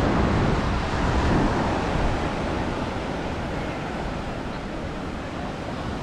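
Ocean surf washing onto a beach, with wind buffeting the microphone; a little louder in the first second or two, then easing to a steady wash.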